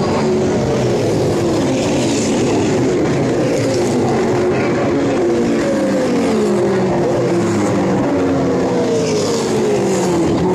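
V8 touring race cars' engines running hard on the circuit, several cars at once. Their engine notes slide down in pitch again and again, each fall lasting a few seconds.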